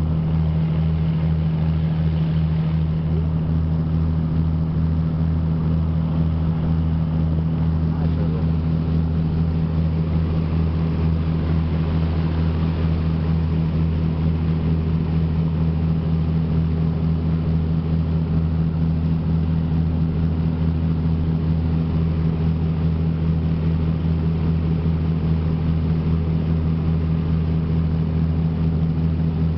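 Motor launch's engine running steadily under way, a constant low drone with water rushing along the hull.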